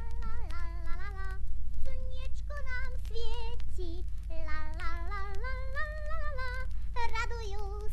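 A girl's high voice singing a light, cheerful melody, holding notes with a slight vibrato, over a steady low hum.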